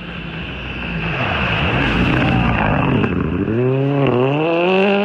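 Rally car engine dropping in revs, then pulling hard with rising pitch, with a quick gear change about four seconds in.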